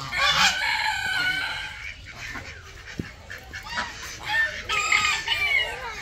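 Domestic fowl calling loudly. A long drawn-out call comes in the first second and a half, then a run of shorter calls from about four to five and a half seconds in.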